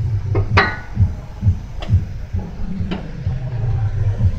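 Low, irregular thumps about twice a second from the phone microphone being handled and rubbed against clothing, with a few sharp metallic clinks of tools on the front suspension, the loudest about half a second in.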